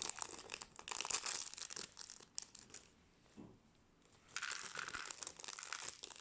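Plastic packaging of a toy minifigure crinkling and tearing as it is opened by hand, in two spells of rustling with a short quiet pause in the middle.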